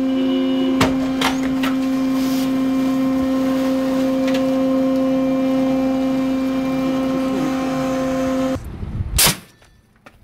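Steady, loud mechanical hum from shipboard machinery during an AUV launch from the stern cradle, with a few sharp clanks in the first two seconds. The hum cuts off suddenly near the end, followed by a loud rush of wind on the microphone.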